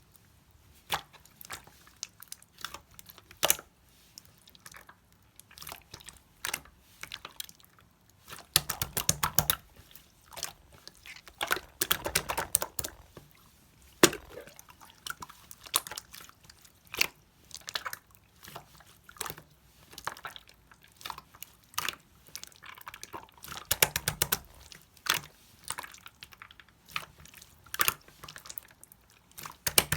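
Slime being squeezed, folded and stretched by hand, making irregular wet clicks and pops, with three longer spells of dense crackling as air bubbles in it burst.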